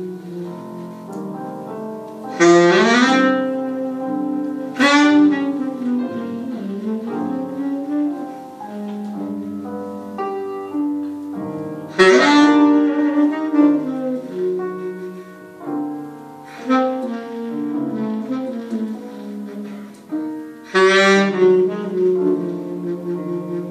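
Saxophone and piano playing jazz together: a saxophone melody over piano chords, with several loud, bright accented notes.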